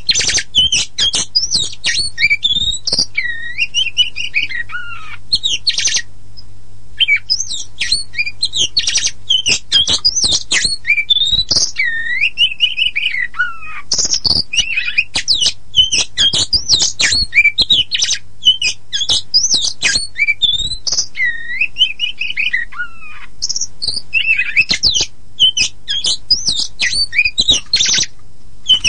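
Oriental magpie-robin (kacer poci) singing a continuous, fast, varied song of chirps, slurred whistles and harsh notes, with a brief pause about six seconds in.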